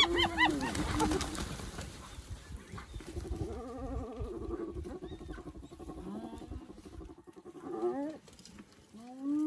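Spotted hyenas calling at a carcass: a quick run of high-pitched giggling notes at the start, over a flurry of vultures' wings, then a long low moaning call about three seconds in and short rising calls near the end. The giggling is the call hyenas give when squabbling over food.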